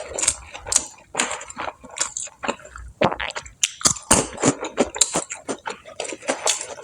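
Close-up chewing and biting of crispy fried food, a dense, irregular run of crunches.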